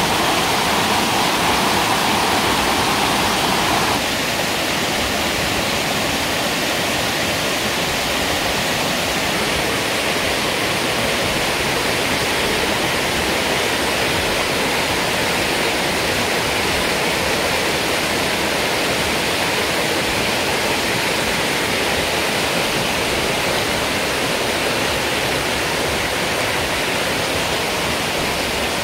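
A rocky stream rushing over stones in a steady, loud roar of water, a little quieter after about four seconds.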